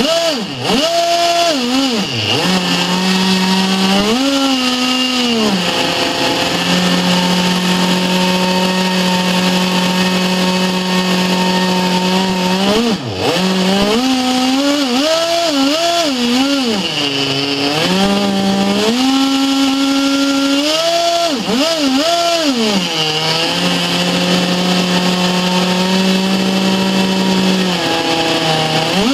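Webra 61 two-stroke glow engine on a tuned pipe, driving a RamTec ducted fan with a cut-down RK40 rotor, running hard on a test stand. The pitch holds steady for several seconds at a time, then revs up and down, with a few quick drops in revs.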